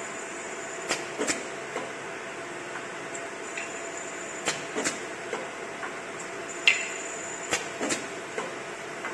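CO2 laser marking machine with a conveyor belt running: a steady mechanical hum with a constant mid tone, a thin high whine that comes in for about a second at a time, three times, and several sharp clicks and knocks, the loudest near the end.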